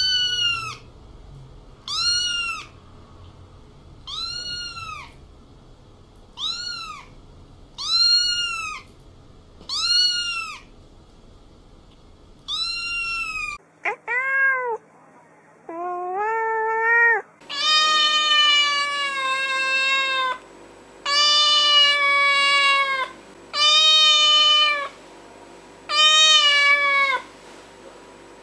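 A series of cat meows: a kitten's short, high-pitched meows repeated about every two seconds, then after about fourteen seconds a couple of rising meows and a run of longer, lower adult cat meows, each held for about a second.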